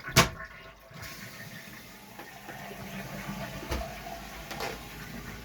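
A single sharp knock just after the start, then a toilet refilling after a flush: a steady hiss of water running into the tank and bowl, with a couple of faint clicks.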